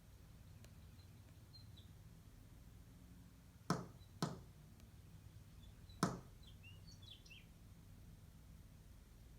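A purple finch giving soft, high chirps, a few around the middle of the clip, over a faint background. Three sharp taps cut in, two close together and one a couple of seconds later, and these are the loudest sounds.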